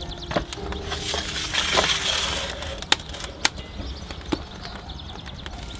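Metal roasting pan scraped across the stone floor of a wood-fired oven as it is pushed in. The scrape starts about a second in and lasts over a second, and two sharp clicks follow about half a second apart.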